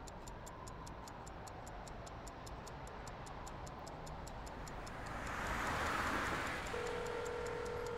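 Mechanical stopwatch ticking fast and evenly, about five ticks a second. About five seconds in, a passing car swells up as a soft rush, and near the end a steady held tone comes in.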